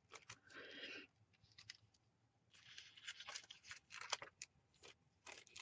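Faint rustling and crinkling of thin tissue paper being handled: a short rustle near the start, then a run of soft crackles and light ticks in the middle.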